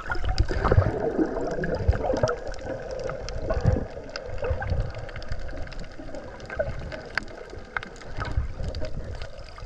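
Muffled sea water sloshing and gurgling, heard from under the surface, with irregular low thumps and scattered small clicks.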